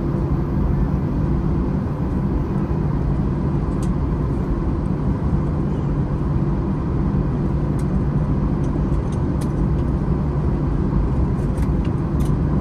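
Airliner cabin noise heard from a window seat of an Airbus A321: its CFM56 engines and airframe make a steady, even rumble. A few faint clicks and rattles from cabin fittings come through, mostly in the second half.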